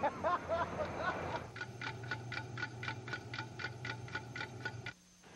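Mechanical penny parking meter ticking as it runs down, about four ticks a second. The ticking starts about a second and a half in and cuts off suddenly near the end.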